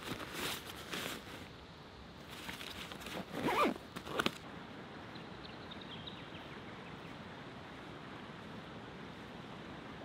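Rustling, then a zipper pulled in a couple of quick strokes about three and a half to four seconds in, followed by a steady even hiss.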